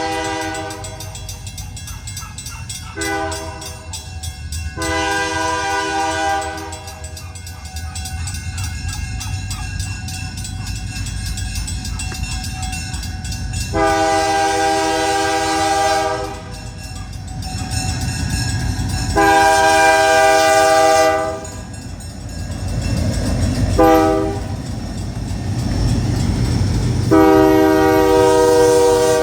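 Diesel locomotive air horn sounding a series of blasts, mostly long with one short one, over the steady low rumble of the locomotives. The last four blasts go long, long, short, long: the grade-crossing signal.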